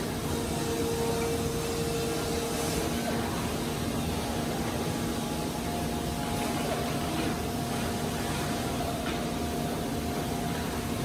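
Steady factory machinery noise: a constant whir with a low hum, a higher tone coming in for about two seconds near the start and another from about six seconds in. A few faint knocks of wooden frame parts being handled.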